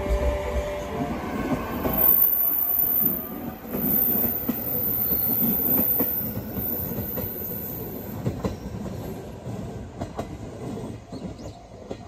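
Electric train running on the rails, its wheels rumbling and clacking, with a thin high squeal for a few seconds, growing fainter as it moves away.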